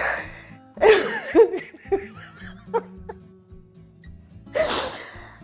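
Breathy laughter and gasps over soft background music, with a loud breathy outburst at the start and again near the end.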